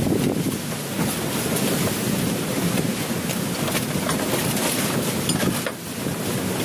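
Wind buffeting the microphone, a steady rumbling rush with a few faint light ticks in the middle.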